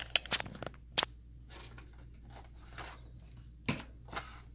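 Handling noise: scattered light clicks and knocks as the camera view is shifted and the opened plastic projector housing is touched. A cluster of small clicks comes at the start, a sharp click about a second in, and the loudest knock near the end, over a faint steady low hum.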